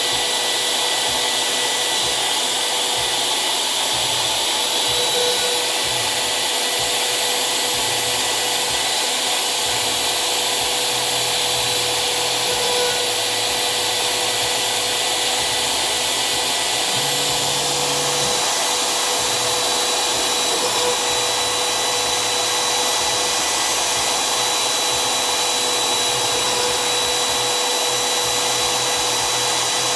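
CNC router spindle running at a steady high whine while routing PVC. Lower motor tones shift now and then as the machine moves.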